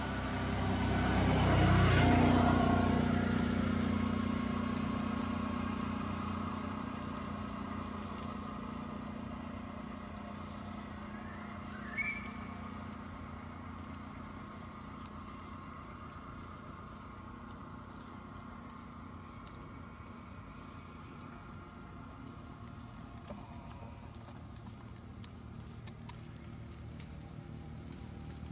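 Steady high-pitched droning of insects throughout. A vehicle passes, loudest about two seconds in and fading away over the next several seconds. A brief high chirp sounds once near the middle.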